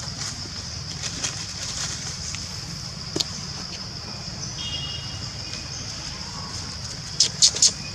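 Forest ambience: a steady high-pitched insect drone over a low rumble, with a faint click about three seconds in and three sharp, loud snaps close together near the end.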